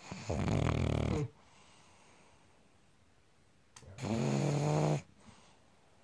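Pug snoring twice, two long rasping breaths each about a second long, the second starting about four seconds in, while it sits relaxed under a neck massage.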